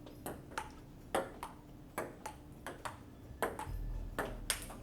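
Table tennis rally: a ping-pong ball clicking back and forth off paddles and the table, with short sharp hits about two or three times a second at an uneven pace.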